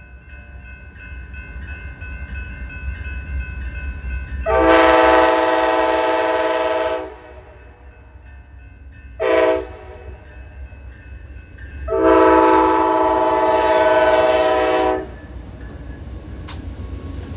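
Amtrak locomotive's Nathan K5LLA five-chime air horn blowing a long blast, a short toot, then another long blast, each a loud chord of several notes. A steady low rumble from the passing train runs underneath.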